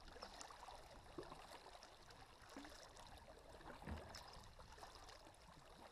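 Faint water sounds of double-bladed paddles dipping and dripping as a tandem kayak is paddled, with a soft low knock about four seconds in.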